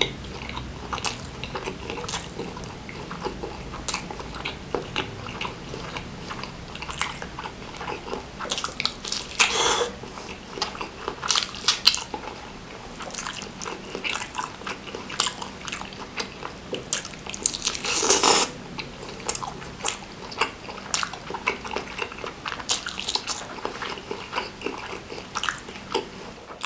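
Close-miked chewing and biting of food: many sharp, wet clicks and smacks at an irregular pace, with two longer, louder noisy sounds about nine and eighteen seconds in.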